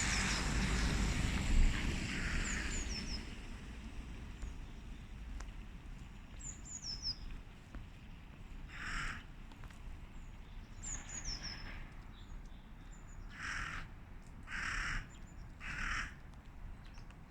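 Wild birds calling in winter. Thin, high chirps that fall in pitch come in small clusters four times. Four short, harsh calls follow in the second half.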